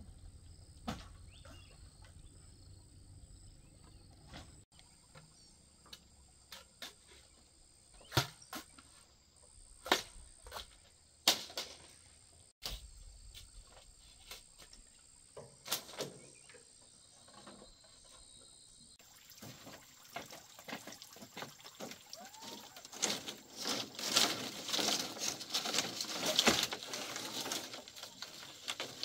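Quiet lakeside ambience with a steady high insect buzz and a few scattered knocks. About two-thirds in it gives way to dense, irregular clattering of split bamboo strips being handled and stacked on a bamboo deck.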